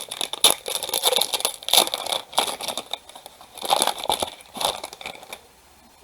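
Trading-card pack wrapper being crinkled and torn open by hand, a series of irregular crackling rustles that stop about five seconds in.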